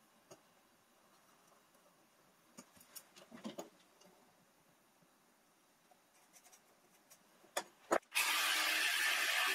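Faint taps and light scrapes of a combination square and pen on a workbench, then two sharp clicks and a jigsaw starting up about eight seconds in and running steadily and loudly.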